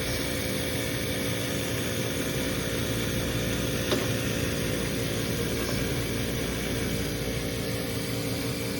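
Older Carrier 80% gas furnace running with a steady, loud hum holding several fixed tones, with a single click about four seconds in.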